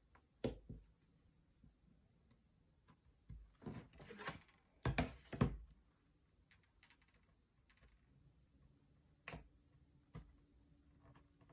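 Laser-cut plywood kit sheet handled on a cutting mat: scattered sharp clicks and wooden knocks as parts are pressed out of the sheet with a slim metal tool and the sheet is shifted, with a cluster of louder knocks about five seconds in.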